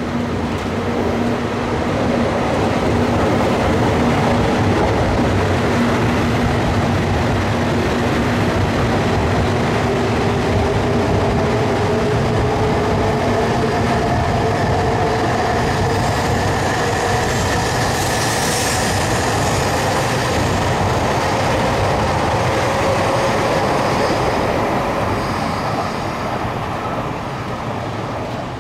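E956 ALFA-X Shinkansen test train running by: a steady, loud rumble of wheels on rail, with a whine that rises slowly in pitch through the middle stretch and a brief hiss about two-thirds of the way through.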